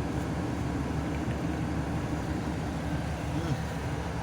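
Steady engine and road rumble of a bus travelling along.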